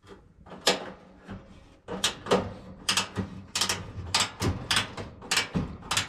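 Ratcheting wrench clicking as a 5/16 screw on the dryer's heater housing is backed out. There are a few sharp clicks at first, then a steady run of about two to three clicks a second from about two seconds in.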